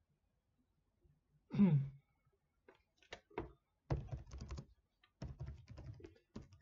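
Typing on a computer keyboard in two quick bursts of keystrokes, after a few single clicks. About one and a half seconds in, a short hum from the voice.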